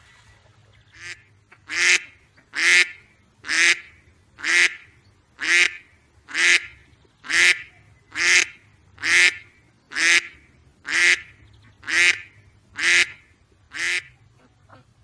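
A duck quacking in a steady series of about fifteen short quacks, roughly one a second; the first is fainter than the rest.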